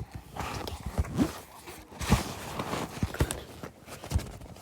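Makeup items being put into a makeup bag: a handful of dull knocks and clunks at uneven gaps, with light rustling between them.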